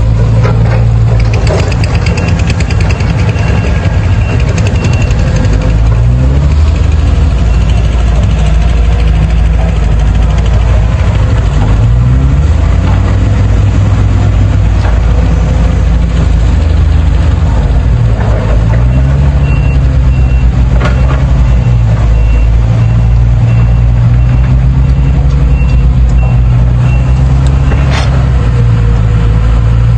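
A JCB excavator's diesel engine working, its pitch rising and falling as it revs under load, with a few sharp knocks. A repeating high alarm beep sounds for a few seconds near the start and again through much of the second half.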